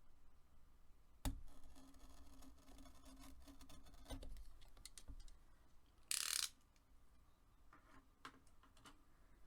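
Faint handling noise of packaging being opened: a few sharp clicks and knocks, with one short rustle about six seconds in.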